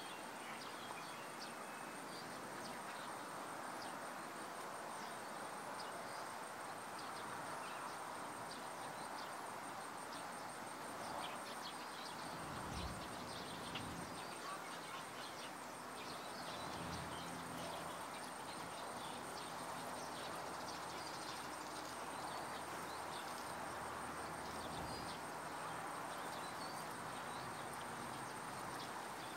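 Faint garden ambience: a steady hiss with many small scattered ticks and chirps and a thin, steady high whine. A low rumble comes and goes in the middle.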